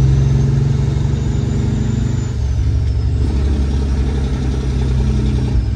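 Diesel semi-truck engine running with a steady low drone, dipping slightly a little over two seconds in, with a faint high whine that slowly rises and falls above it.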